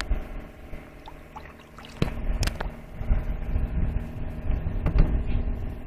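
Low, steady rumble with faint water sounds around a small wooden fishing boat, and a few sharp knocks about two seconds in.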